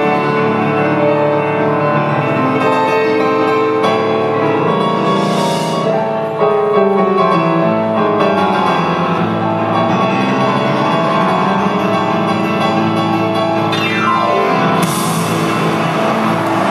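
Grand piano played live through the hall's sound system: a fast, dense solo passage. Near the end it plays a quick descending run, and a wash of high hissing noise comes in over it.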